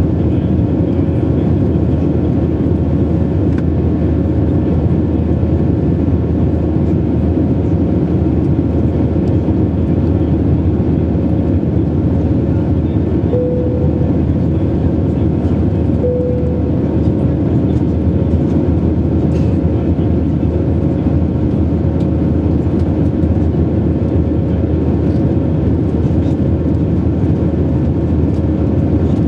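Steady cabin noise of an Airbus A321 in flight, heard from a window seat over the wing: a deep rumble of engines and airflow with a steady hum riding on it. The hum sharpens briefly twice about halfway through.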